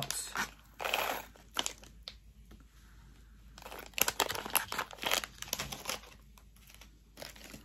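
Clear plastic resealable bags of bead charms being handled, crinkling in irregular bursts, busiest at the start and again around the middle.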